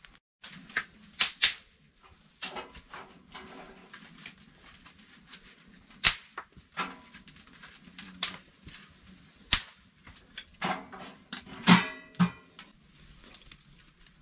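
Irregular sharp cracks and knocks as a small steel wood stove is lit with dry twigs and handled; a cluster of knocks near the end has a short metallic ring.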